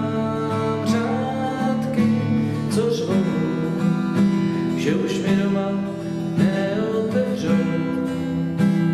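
Steel-string acoustic guitar strumming chords in a steady rhythm, an instrumental passage between sung verses.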